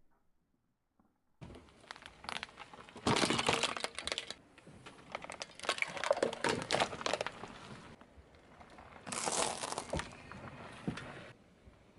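Car tyre rolling over and crushing hard plastic objects: crackling and crunching that starts about a second and a half in, with three louder bursts around three, six and nine seconds in.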